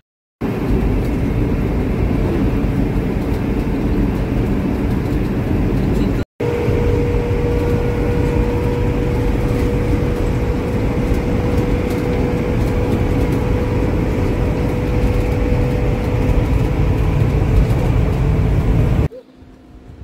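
Steady road and engine noise inside a moving motorhome, heard from the living area. For several seconds in the middle a steady whine rides over the rumble.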